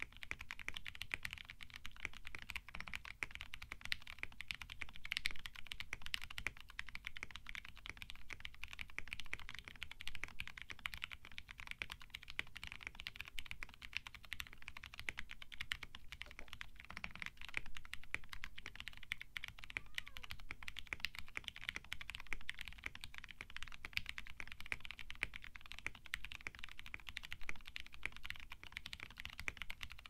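Fast, continuous typing on an Akko 3068 custom mechanical keyboard: a dense, steady stream of keystrokes from lubed and filmed Cherry MX Brown tactile switches, spring-swapped to 62 g, under Drop MT3 keycaps in a foam-dampened case.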